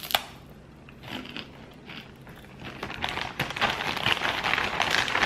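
Crisp puffed-rice roll snack being bitten and chewed with dry crunching, mixed with a plastic zip-top bag crinkling. The crackling is sparse at first and turns denser and louder in the second half.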